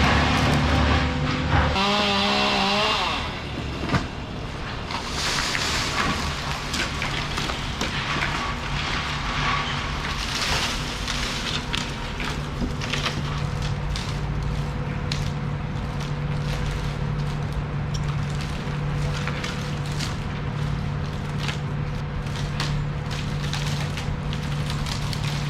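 Dead oak limbs cracking, snapping and crashing down as they are cut and dropped out of the tree, many sharp cracks spread through the whole stretch. Under them runs a steady engine hum, louder for the first few seconds and then dropping.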